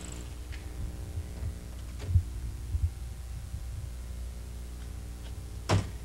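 A Volkswagen Karmann Ghia's door being shut with a single sharp slam near the end, after a couple of dull thumps about two seconds in as the driver gets out, over a steady low hum.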